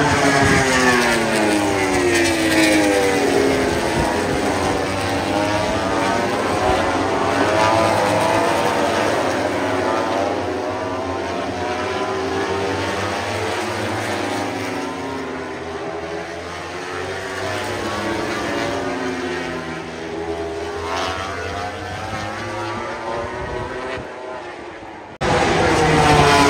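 Several MotoGP race motorcycles running at high revs, passing one after another. Their engine pitches overlap and keep sweeping down as bikes go by and rising again as they accelerate. The sound changes abruptly near the end.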